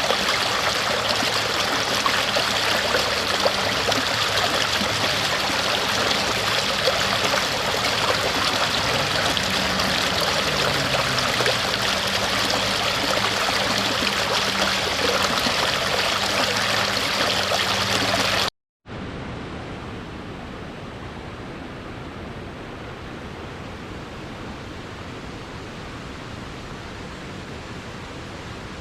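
Stream water rushing in a steady, even flow. About two-thirds of the way in it cuts off abruptly for a split second, and a quieter, duller steady rush of water follows.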